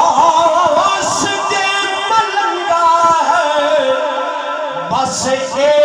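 A man singing a devotional Punjabi verse into a microphone, in long, wavering, drawn-out notes. A new line starts about five seconds in.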